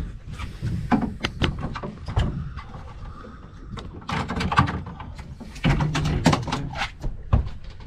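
Irregular knocks, bumps and scuffs of gear being handled on a fibreglass boat deck, as a landing net is moved off a landed shark.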